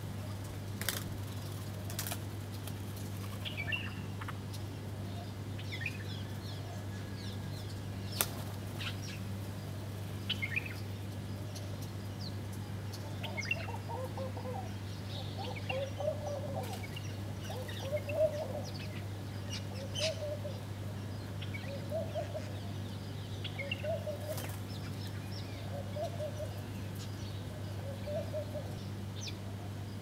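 Doves cooing, a low call repeated every second or two from about halfway through, with small birds chirping, sharp wing flaps and taps as birds land at a water dish, and a steady low hum underneath.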